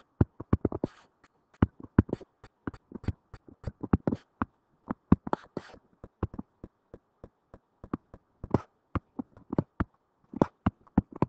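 Stylus tapping and clicking on a tablet or touchscreen while handwriting: irregular sharp clicks, several a second, with short pauses between strokes.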